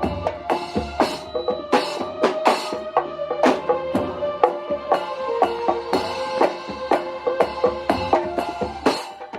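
Marawis ensemble playing an instrumental passage: fast, dense hand-drum strokes and deep bass drum hits under a sustained melody line.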